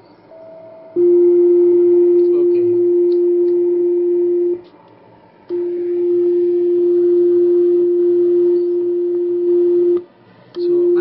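A steady CW beat-note tone from a shortwave receiver picking up the carrier of a homebuilt Si5351 DDS oscillator on 40 metres. A brief higher tone comes first, then a steady low-pitched note in two long stretches of three to four seconds with short breaks between them, and it starts again near the end.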